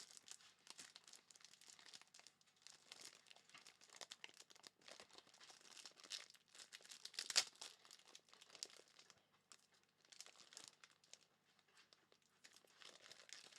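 Faint, irregular crinkling of plastic wrappers and sleeves as trading cards are handled, with a slightly louder crackle about seven seconds in.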